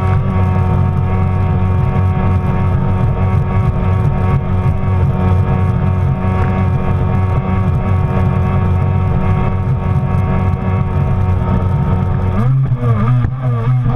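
Stand-up Kawasaki Jet Ski engine running at steady high throttle, its pitch held level, over the rush of water spray. About twelve seconds in, the pitch starts to rise and fall as the throttle changes.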